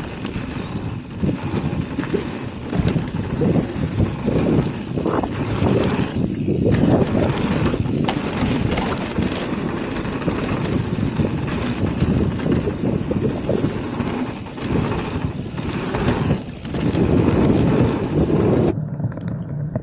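Wind buffeting the microphone over the clatter of a mountain bike riding rough trail, tyres and frame rattling irregularly; it cuts off abruptly near the end.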